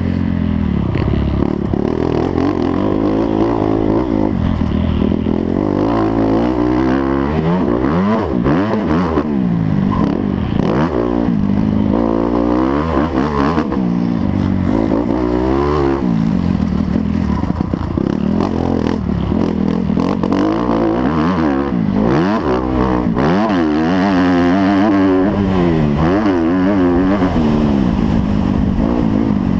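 Several motocross bikes running together, their engines revving up and down so that many rising and falling pitches cross one another throughout, with a clattering mechanical edge.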